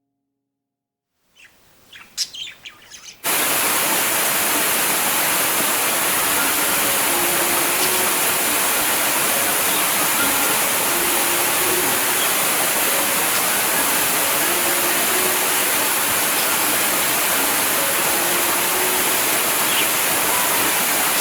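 A few faint bird chirps, then about three seconds in an abrupt cut to a loud, steady rush of flowing water.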